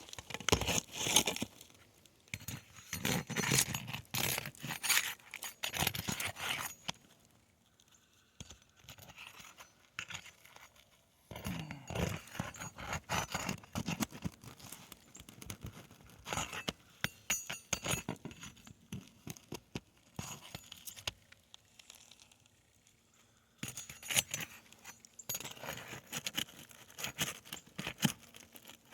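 Asphalt shingles being worked loose by hand and tool: scraping, tearing and sharp knocks and clicks. They come in three busy stretches with quieter pauses between them.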